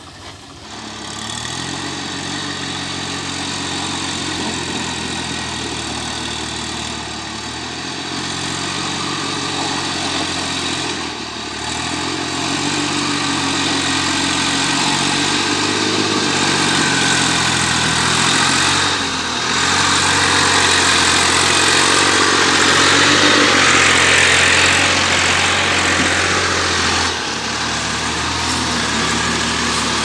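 Diesel farm tractor engine running under load while pulling a loaded trailer through mud, its note shifting in pitch and growing louder past the middle.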